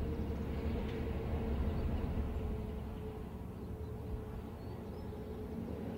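Steady low rumble of distant road traffic, with a faint steady hum over it.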